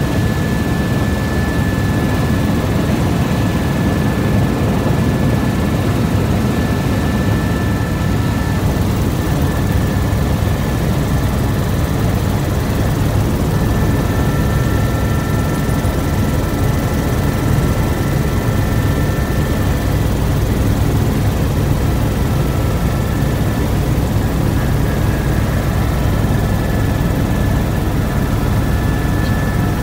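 Helicopter in flight heard from inside the cabin: a steady, loud rotor and engine drone with a thin, steady high whine over it.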